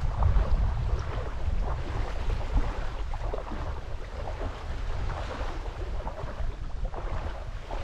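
Wind buffeting the microphone with a low, uneven rumble, over the wash of sea water along the shore.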